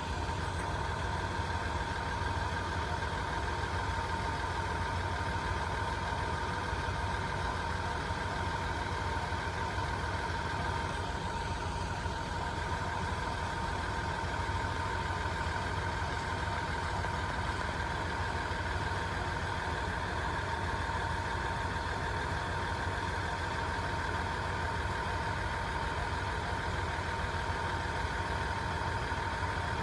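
Steady low hum of a standing 415 series electric train, with a constant high whine over it and no change in level.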